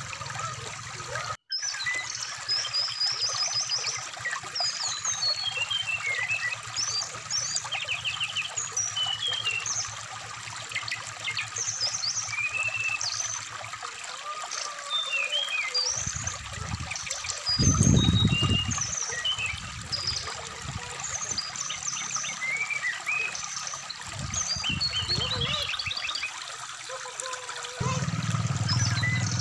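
Brown-chested jungle flycatcher song: a long run of varied high chirps, short trills and whistled slurs over the steady trickle of a shallow stream. A louder low rush comes about two-thirds of the way through, and the sound cuts out for an instant about a second and a half in.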